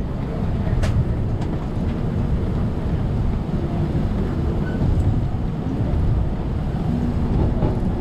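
On-board running noise of a Circumvesuviana ETR 211 electric train: a steady rumble of wheels on the rails, with a click about a second in and a steady low hum coming in near the end.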